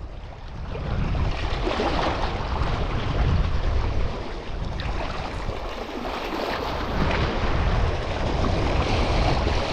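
Sea waves washing with wind buffeting the microphone: a steady rushing noise with a heavy low rumble.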